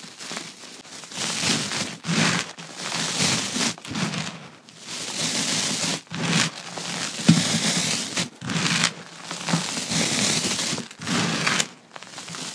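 Hands crushing and crumbling gritty reformed gym chalk: a string of dry crunching, crackling squeezes, one after another with short pauses between.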